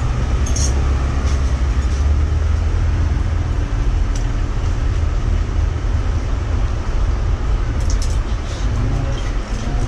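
A steady low rumble throughout, with a few light clicks near the end.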